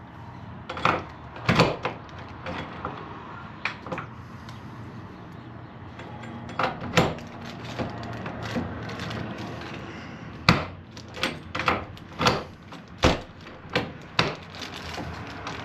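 Irregular sharp clicks and knocks of deadbolt lock parts being handled and fitted against the door, more frequent in the last few seconds.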